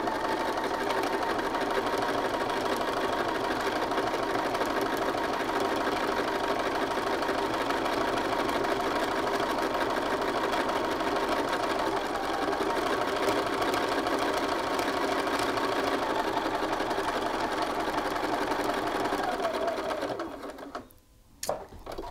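Bernina sewing machine running steadily at an even speed, topstitching through the layers of a shirt collar. It stops about two seconds before the end, followed by a couple of short clicks.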